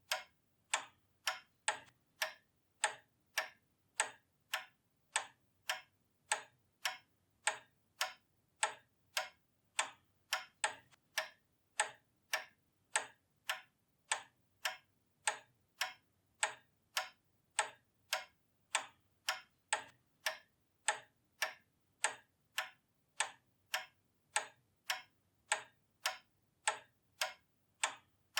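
Pendulum clock ticking steadily, a little under two even ticks a second, each a sharp click.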